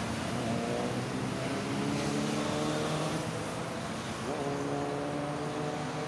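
Road traffic: a motor vehicle's engine running with its pitch shifting several times and rising quickly about four seconds in, over a steady hum of traffic.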